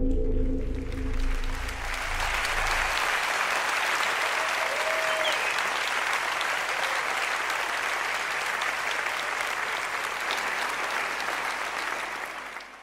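A large audience applauding as a live ensemble's last low note dies away in the first few seconds; the applause stays steady, then fades out quickly near the end.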